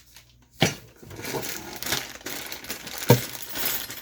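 Bagged RC kit parts being handled: plastic parts bags rustle and crinkle, with two sharp clinks of hard parts knocking together or being set down, about half a second in and again about three seconds in.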